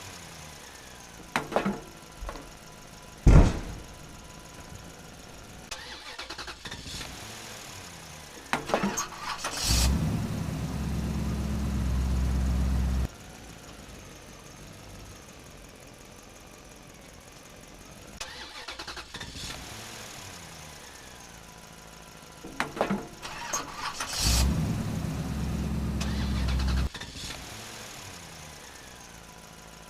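Engine starting after a few clicks and clunks, running steadily for about three seconds and cutting off abruptly; the same sequence comes twice. There is a sharp knock about three seconds in.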